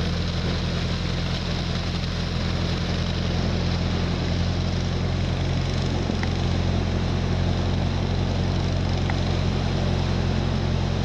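An engine runs steadily as the vehicle pushes through deep floodwater. Water rushes and splashes against its side throughout.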